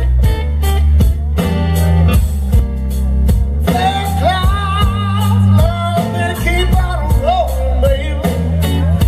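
Live slow blues band: electric guitar, bass guitar and drums playing, with a man's voice singing in over them from about four seconds in.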